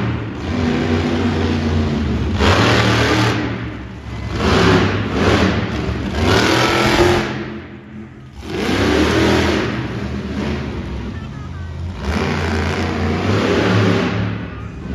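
Monster truck engine revving hard in repeated bursts, rising and falling, with a brief lull about eight seconds in.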